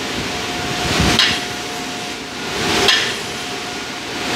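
Two ringing metal-on-metal hammer blows about a second and three quarters apart, over the steady noise of a blast furnace cast house.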